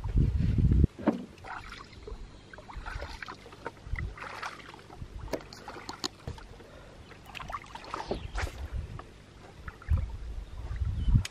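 Small boat on a lake with irregular knocks, clicks and water splashes. A loud low rumble comes in the first second and again near the end.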